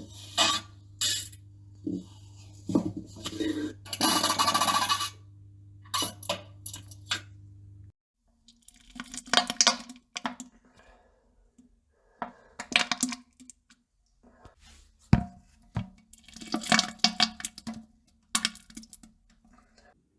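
A string of short sputtering and splattering bursts of diarrhea and farting, some single pops and some longer spluttering runs. A low steady hum sits under the first eight seconds or so and cuts off abruptly.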